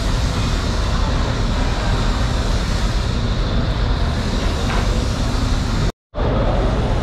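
Steady background din of an open-fronted market, a rumble and hiss like traffic. It cuts out completely for a moment about six seconds in.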